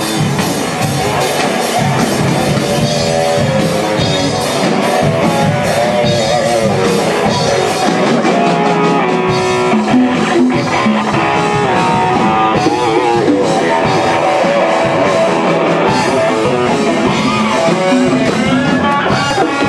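Live jam with an electric guitar and drums playing rock-style music, steady and loud.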